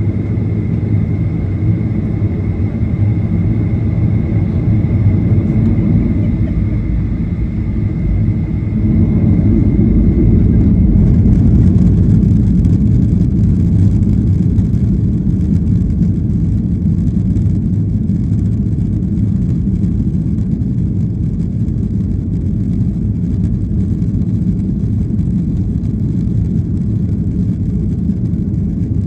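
Jet airliner cabin noise during takeoff: loud, steady engine and runway rumble, swelling a little about nine seconds in. A thin steady high whine runs alongside and stops about eleven seconds in.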